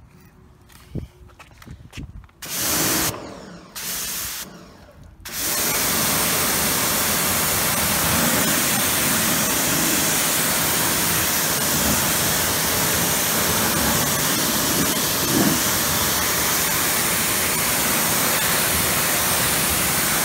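Pressure washer spraying: two short bursts, then a steady spray of about fifteen seconds.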